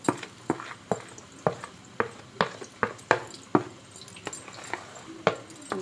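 A spoon clinking against a bowl while spices are mixed in: about a dozen short, sharp, irregular clicks.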